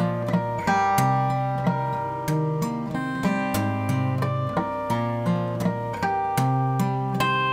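Steel-string acoustic guitar played fingerstyle: a moving bass line under a picked melody, with sharp attacks on the notes throughout.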